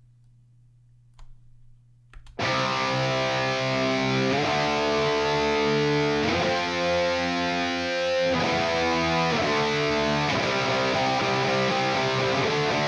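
A couple of faint clicks, then about two seconds in a distorted electric guitar riff starts, played through the ML Sound Lab ML800 amp-simulator plugin with a high-gain Marshall JCM800-style tone and a drive pedal in front. Held chords change about every two seconds.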